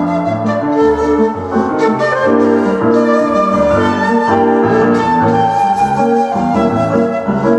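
Seven-hole 1.6-shaku shakuhachi and piano playing together: the bamboo flute holds long notes over changing piano chords.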